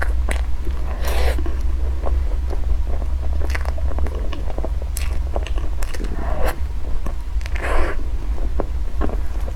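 Close-miked chewing and biting of food, with scattered sharp clicks and wet mouth sounds and a couple of longer, noisier mouth sounds about a second in and near eight seconds, over a steady low hum.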